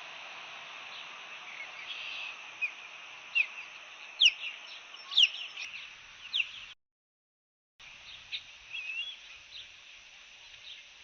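Osprey calling: a run of short, sharp, whistled chirps over a steady hiss of wind. All sound cuts out for about a second partway through.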